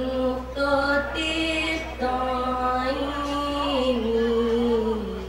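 A woman singing solo into a microphone through the sound system, a slow, drawn-out melodic line of long held notes that glide from pitch to pitch, with the drums silent.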